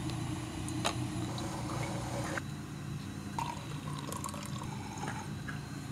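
Brewed coffee being poured from a glass carafe into a stainless steel cup, a liquid fill over a steady low hum.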